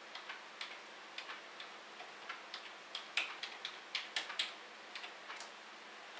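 Light, irregular clicks of keys being typed on a keyboard, a few keystrokes a second with short pauses.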